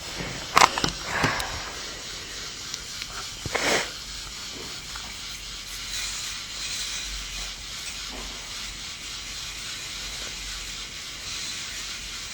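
K'nex toy roller coaster running, a steady hiss that swells and fades a little, with a few brief knocks in the first four seconds.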